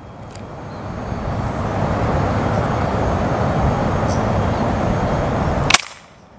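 A steady noise builds over the first two seconds and holds. Near the end comes a single sharp shot from a Sharp Pasopati multi-pump pneumatic air rifle charged with ten pumps, and the noise cuts off with it.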